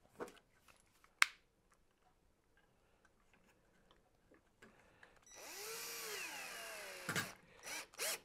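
Cordless drill driving a screw through a Lexan polycarbonate cover into a wooden strip for about two seconds, its motor pitch rising and then sinking as the screw draws tight. A sharp click about a second in and a few knocks just after the drill stops.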